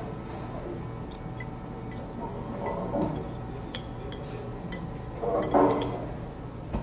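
Knife and fork clinking and scraping against a ceramic bowl as chicken is cut, in scattered sharp clicks. A short hum rises about five and a half seconds in.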